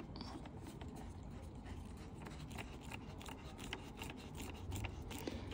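Hand screwdriver turning a small screw into a plastic car grille: a faint, irregular run of small ticks and scraping clicks.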